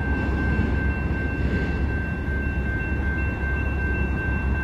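Railroad crossing bell ringing steadily over the low rumble of a Union Pacific intermodal freight train moving away after clearing the crossing.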